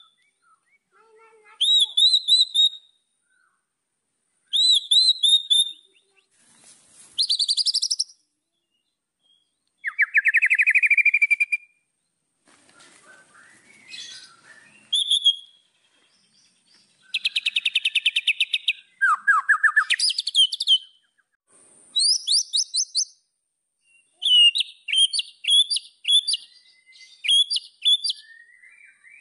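White-rumped shama singing a string of short, varied phrases separated by brief pauses: clear whistles, fast trills, rapid repeated notes and a few sharply rising glides.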